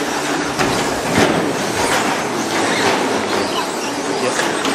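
Radio-controlled short-course trucks racing around the track: a steady noisy wash of motors and tyres, with a few short clicks.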